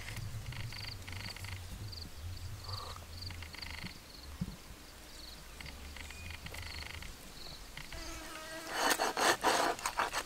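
Repeated short, high-pitched pulsed chirps of small wild creatures, frog- or insect-like. About nine seconds in, a quick run of loud scraping and cutting strokes as a cleaver works a fish on a wooden chopping board.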